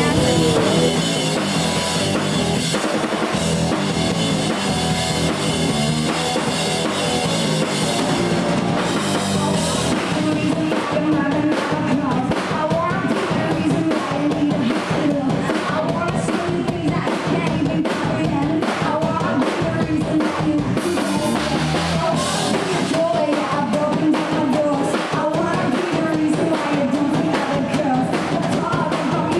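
Rock band playing live: a drum kit keeping a steady beat, with bass and guitar and a woman singing lead. The drums and vocals come in more strongly about a third of the way through.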